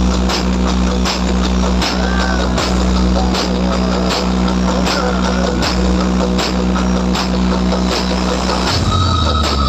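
Loud music through a large DJ sound system, with a heavy sustained bass and a steady beat; the bass line shifts to a different pattern near the end.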